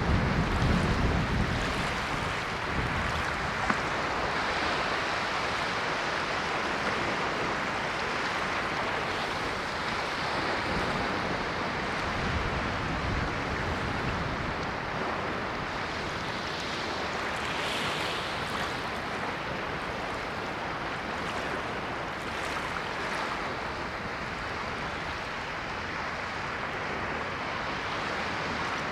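Ocean waves washing onto a shore, a steady surf hiss with slow swells as each wave breaks and draws back, stronger in the first couple of seconds.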